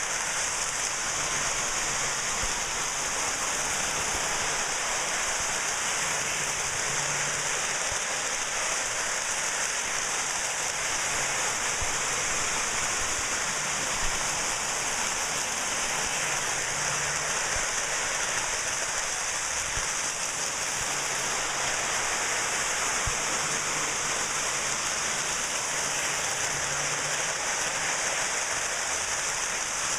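Lionel toy electric trains running around their track. A steady hiss sits over a low hum that swells and fades as the trains circle, with a few faint clicks.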